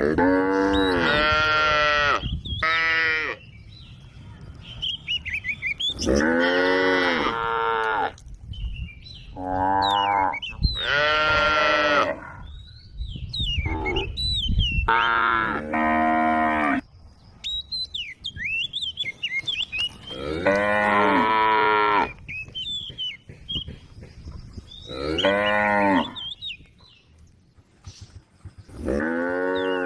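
Cows mooing, calling to one another: about ten long, drawn-out moos of one to two seconds each, some coming back to back, with short pauses between.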